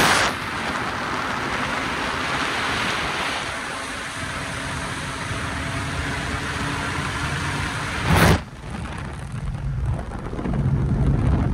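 A 1977 Porsche 911 at speed on a gravel road: tyres crunching over gravel with wind noise. About eight seconds in there is a brief loud burst of noise. After it, the car's air-cooled 2.7-litre flat-six engine is heard from inside the cabin, getting louder near the end.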